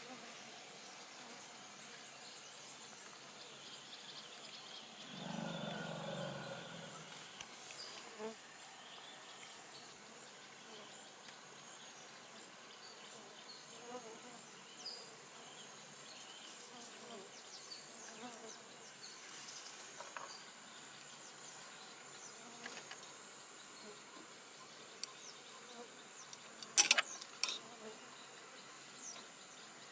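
Insects buzzing steadily under a high hiss, with faint scattered chirps. About five seconds in, a low sound swells for a second or two. Near the end, a few sharp clicks are the loudest sounds.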